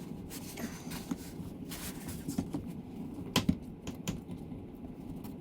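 Scattered light clicks and knocks of hand work on the dishwasher install, with two sharper clicks about three and a half seconds in.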